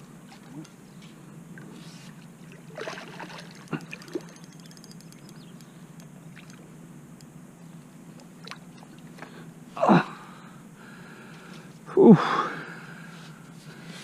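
A man's two loud, strained gasping grunts, about two seconds apart near the end, from the effort of hauling a big carp toward the net. They sit over a steady low hum, with a few faint clicks earlier on.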